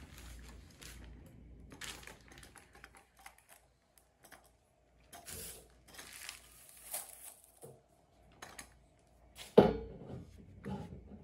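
Hands working a dual corner paint roller frame and its roller covers with a screwdriver: scattered small clicks and knocks of metal and plastic parts, and crinkling plastic wrapping as a new roller cover is unwrapped. One sharp knock, the loudest sound, comes about nine and a half seconds in.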